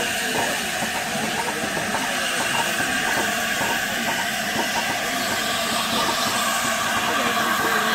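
LNER A4 Pacific steam locomotive No. 4464 Bittern hissing steadily with escaping steam, growing a little louder near the end.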